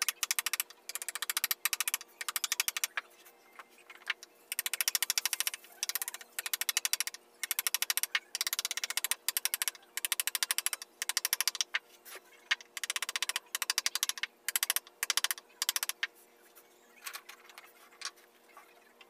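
A wooden mallet tapping a hand carving chisel into wood, in quick runs of taps broken by short pauses. The taps thin out and grow fewer near the end.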